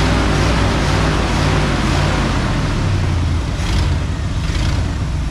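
1987 Ford F150 engine, converted to a carburetor and HEI distributor, running loud and steady. Its spark advance isn't hooked up, which is why it won't rev.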